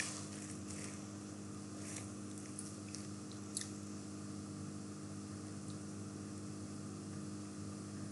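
Faint room tone: a steady low hum with a few soft clicks, the loudest about three and a half seconds in.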